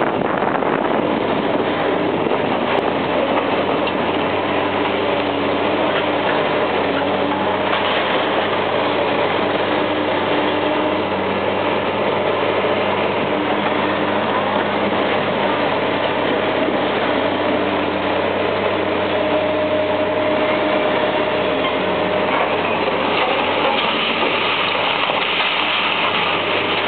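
Liebherr 944B long-reach demolition excavator's diesel engine running under load as its arm breaks and pulls down concrete walls, with a steady din of crunching and falling rubble. The noise grows harsher over the last few seconds as a section comes down in a cloud of dust.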